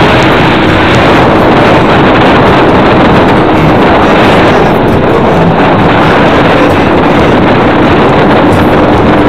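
Loud, steady rushing noise with a faint constant hum, like wind or road noise in a moving vehicle.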